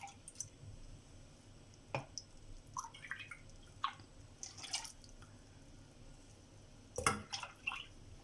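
Milk and water dripping into a saucepan in scattered single drops, with a sharp click about two seconds in and a louder knock about seven seconds in.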